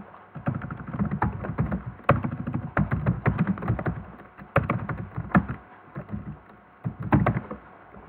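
Computer keyboard being typed on in quick, irregular runs of keystrokes, which thin out about five and a half seconds in before a short burst of keys near the end.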